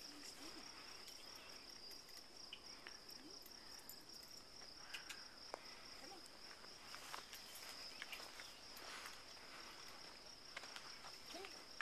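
Insects chirring in a steady, high-pitched chorus, with faint scattered clicks and rustles.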